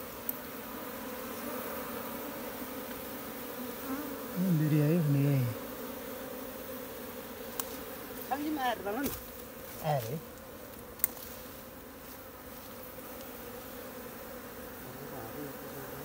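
A wild honey bee colony buzzing with a steady, even hum from its nest in a hollow tree trunk. There are a few sharp clicks in the second half.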